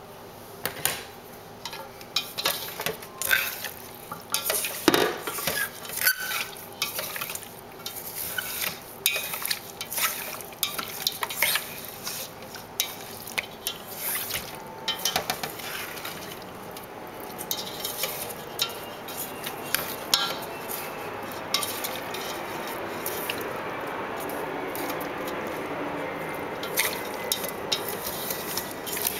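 Wooden chopsticks clicking and scraping against a stainless steel pot while fish, pork belly and fried tofu are tossed in a wet marinade, with many sharp clicks throughout and a steadier wet mixing noise in the second half.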